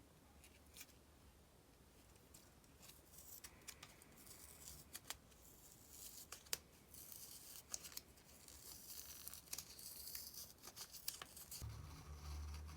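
Faint close-up sounds of paper stickers being handled: scissors snipping and stickers peeling off their backing sheet, with small clicks and crisp rustling that are busiest mid-way. A low hum comes in near the end.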